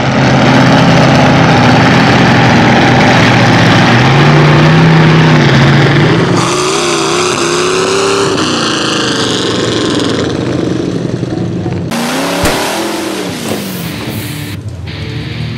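Mud truck's 302 V8 engine, run through headers and stacks, revving hard and loud, its pitch rising and falling several times.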